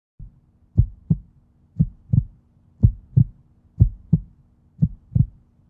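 Heartbeat sound effect: paired lub-dub thumps, about one pair a second, over a faint steady hum.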